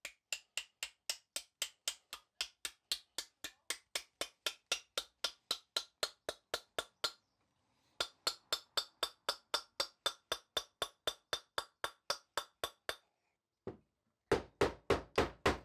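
Rapid, even light hammer taps driving a wooden wedge into the eye of a hatchet head to fix it on its wooden handle, about four taps a second in two runs with a brief pause between. A handful of heavier, deeper knocks follows near the end.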